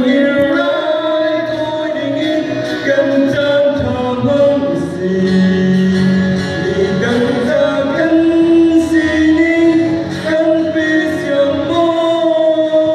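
A man singing a solo through a microphone and PA, with held, sliding notes, accompanied by a strummed acoustic guitar.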